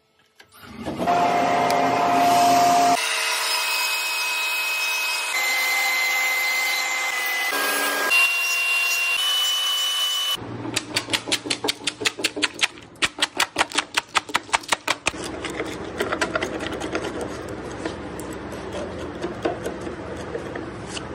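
Radial arm saw running and cutting into a large square timber to form a tenon, its motor holding a steady pitch that changes in steps between cuts. Past the middle comes a fast run of regular cutting strokes, about four a second, then steadier cutting noise.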